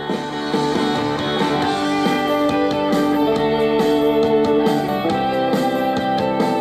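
Guitar music playing through the converted 8-track car stereo amplifier and a pair of desk speakers. It gets much louder right at the start as the volume is turned up, then stays steady.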